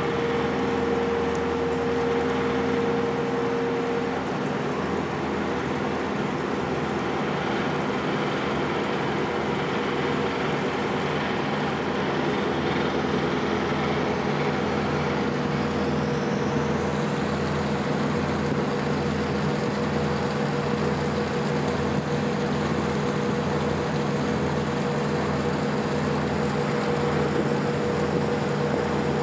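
A ferry's engines running steadily under way: an even drone with held tones and a slow, regular throb.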